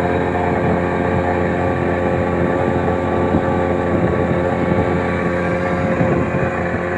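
Small fishing boat's engine running steadily under way at about 12 knots, its pitch holding constant.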